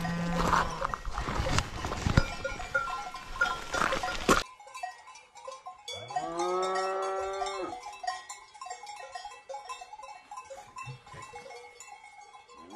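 Cows mooing, with one long moo about six seconds in that rises and then falls in pitch, and another starting at the very end, over faint cowbells. For the first few seconds a rough rushing noise covers everything and stops abruptly.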